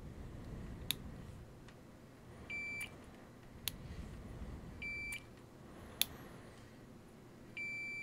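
Digital multimeter's continuity beeper sounding three times, short steady high beeps, the last starting near the end and lasting longer. Each beep shows continuity through one position of the rotary switch under test. Short sharp clicks fall between the beeps.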